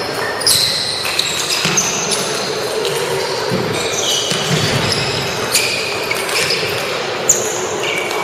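Table tennis balls clicking off paddles and tables in rallies at several tables at once, irregular sharp taps over a steady murmur of voices in the hall.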